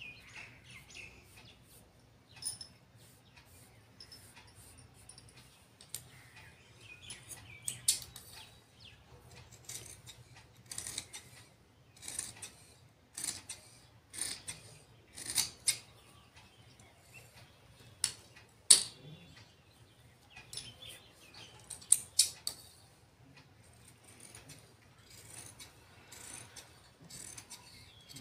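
Tailoring scissors cutting through folded fabric: a series of irregular sharp snips as the blades close, a few of them much louder than the rest.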